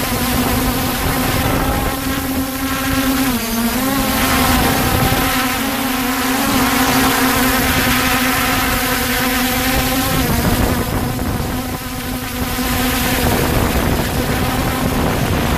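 Holy Stone HS700 quadcopter's brushless motors and propellers buzzing steadily in flight, heard from just below. The pitch dips briefly and recovers about three and a half seconds in, and shifts slightly again near ten seconds.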